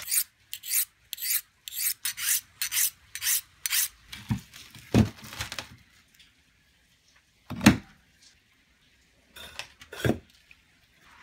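Quick back-and-forth hand-sanding strokes across a rusty steel knife part clamped in a bench vise, about two strokes a second. They stop, and then bricks are set down on a bench with a few solid knocks: one loud knock past the middle and two more near the end.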